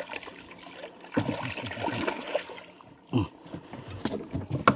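Water splashing as a hooked fish thrashes at the surface and is scooped up in a landing net, with irregular splashes and water running off the net as it comes out.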